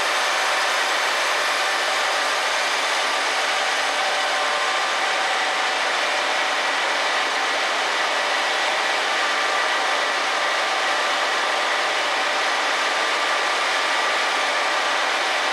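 Cromoman 70 web offset printing press running: a steady mechanical noise of rollers and moving paper web, with faint steady whines.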